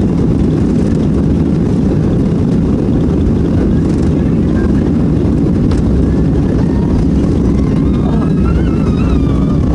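Cabin noise of a Boeing 737-800 under take-off thrust: its CFM56 turbofan engines and the airflow make a loud, steady, deep rumble with no breaks.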